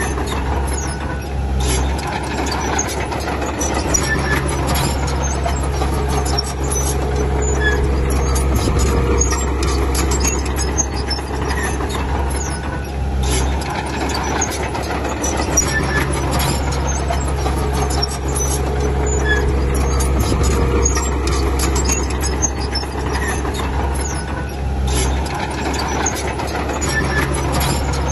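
Bulldozer's diesel engine running under changing load, its note shifting every few seconds as it works, with repeated metallic clanking and short squeaks from the machine.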